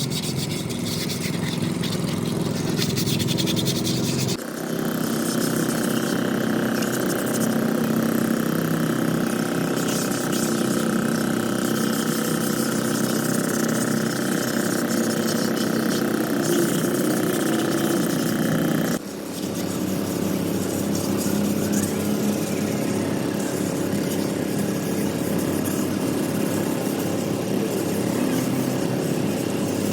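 Steady mechanical running noise from workshop machinery, changing abruptly twice; in the middle stretch a steady high whine runs over it.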